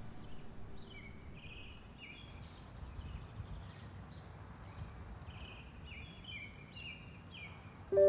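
A songbird singing runs of short, slurred whistled notes in two spells, with a short pause in the middle, over a steady low outdoor rumble.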